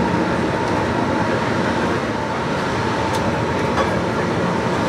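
Train running through an underground tunnel, heard from inside the car: a steady rumble of running noise with a faint, even whine underneath.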